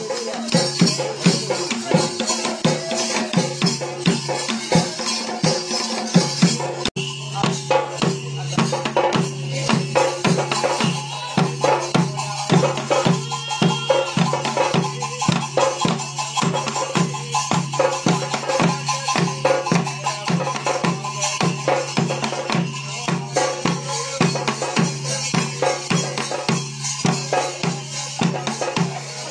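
Kerala ritual drums beaten in a fast, steady rhythm over a steady low tone, with some rattling percussion. About seven seconds in the sound cuts abruptly to another stretch of the same drumming.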